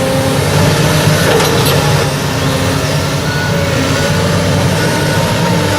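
Heavy diesel engine of a work machine running steadily at a constant speed.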